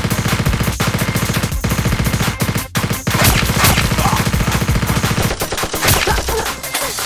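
Gunfire sound effect dubbed over a toy-blaster fight: rapid automatic fire in long bursts with a few brief breaks, thinning out near the end.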